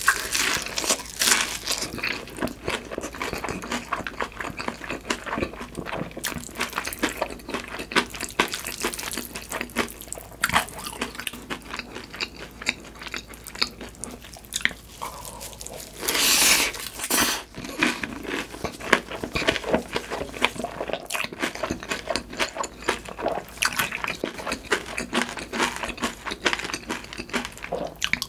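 Close-miked eating sounds: biting and chewing a crispy hash brown topped with sticky, cheese-sauced mi goreng noodles. Dense wet mouth clicks and crunches, with a louder stretch about sixteen seconds in.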